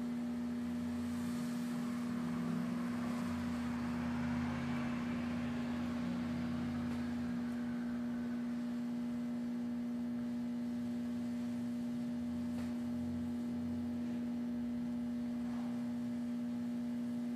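A steady electrical hum, one low unchanging tone, over the faint hiss of a DHC2000 oxy-acetylene welding torch flame melting aluminum and filler rod. The hiss is strongest in the first several seconds, then fades.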